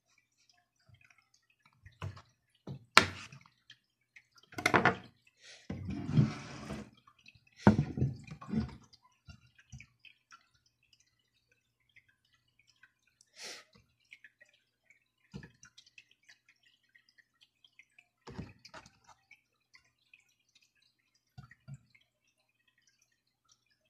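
Scattered sharp taps and clicks of a knife cutting thin carrot slices on a plastic cutting board, with a brief scrape about six seconds in. Later, sparser single light taps as carrot pieces are set down on a ceramic plate.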